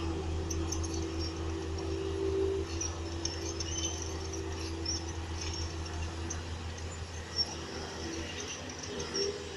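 Diesel engine of a Komatsu crawler earthmover running steadily, with short high-pitched squeaks scattered over the engine hum.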